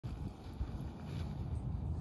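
Wind buffeting the microphone: a gusty low rumble.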